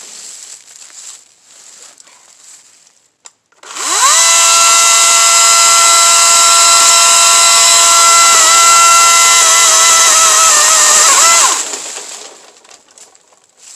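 WEN 16-inch cordless electric chainsaw spinning up with a quick rising whine about four seconds in, then running at full speed for about seven seconds. Its pitch dips briefly and wavers toward the end as the chain cuts off small branches, before it is released and winds down.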